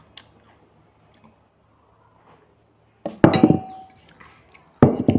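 Dishes clinking and clattering twice, once about three seconds in and again near the end, the first leaving a brief ringing.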